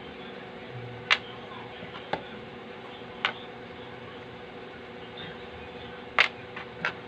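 About six short, sharp clicks and taps of small parts and tools being handled on a workbench, over a steady hum.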